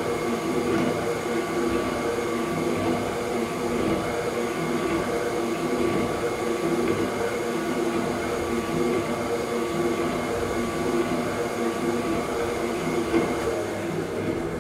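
Kasto PSB 4 power hacksaw running, its electric motor humming steadily under the churning of the drive and the reciprocating saw bow. The sound drops away right at the end as the machine is switched off.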